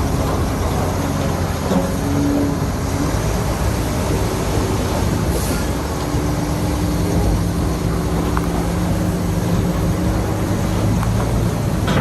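Heavy diesel earth-moving machinery running steadily: a low engine drone with a constant rough, grinding noise over it, the engine pitch shifting slightly about halfway through.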